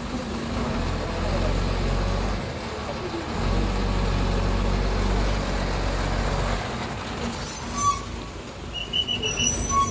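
A truck engine runs close by with a deep steady hum that drops away about two-thirds of the way through. Two loud hisses follow near the end.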